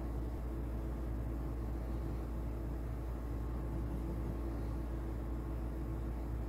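Steady low droning hum that holds level and pitch throughout, with no speech.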